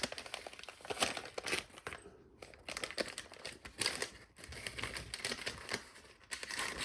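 Packaging crinkling and rustling in irregular bursts as it is handled and pulled open, with a short lull about two seconds in.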